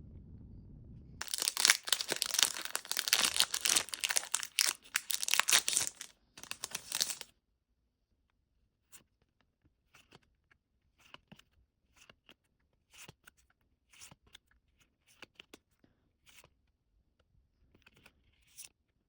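Foil Pokémon booster pack being ripped open, loud crinkling and tearing for about six seconds, then faint scattered clicks and taps as the cards are handled.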